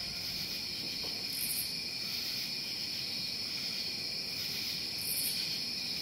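Steady chorus of crickets trilling, with a brief higher buzz about one and a half seconds in and again about five seconds in.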